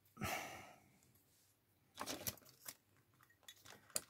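Faint scattered clicks and light taps of a car key fob being handled, a few together about halfway through and a few more near the end.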